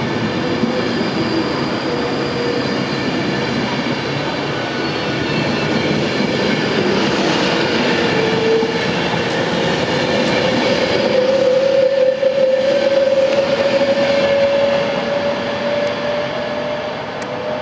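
Class 390 Pendolino electric train moving off along the platform: a steady rumble of wheels on the rails, with a single whine from the traction motors that rises slowly in pitch through the second half as the train gathers speed.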